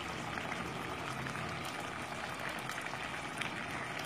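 Thickened tomato and date chutney bubbling steadily in a pan, with many small popping ticks.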